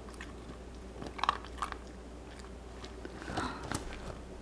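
A puppy crunching and chewing an ice cube, with scattered crisp crunches, a cluster about a second in and another near the end.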